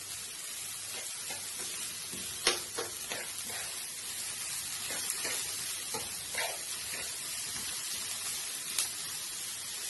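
Diced carrot, onion and Scotch bonnet chili sizzling steadily in hot oil in a pan as they are stirred, with a few sharp knocks scattered through.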